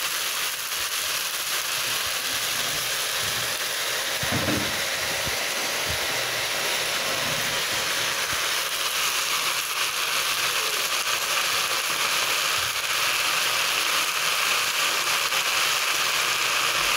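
Leafy greens sizzling and crackling in hot oil in a pan, a steady hiss that grows louder about halfway through.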